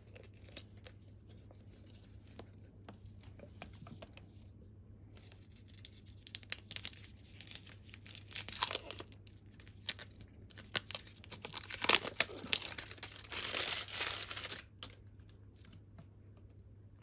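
Plastic film label being torn along its seam and peeled off a PET bottle of barley tea, with irregular crinkling and tearing that grows loudest near the end and then stops.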